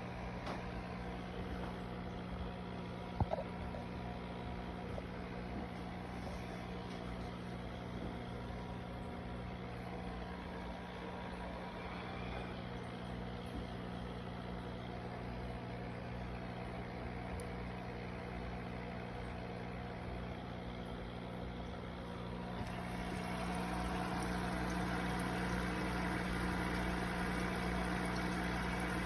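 A steady machine hum with fixed tones, with a single sharp click about three seconds in; the hum grows louder and hissier about 22 seconds in.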